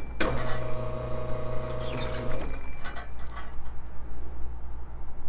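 Espresso machine pump running with a steady hum for about two seconds, then cutting off: a group-head flush before the portafilter goes in. A few light clicks and clatter follow.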